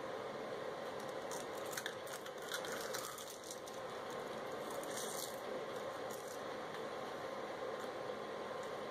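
Faint crackling crunches of a crisp roasted seaweed sheet being bitten and chewed, over a steady background hiss.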